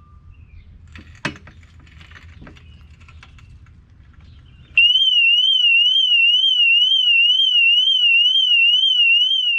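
A sharp click and some low handling noise, then about five seconds in a car alarm siren starts abruptly: a loud, high electronic tone warbling up and down about three times a second.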